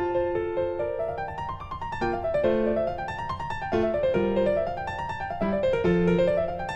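Background music: piano playing quick rising and falling runs of notes.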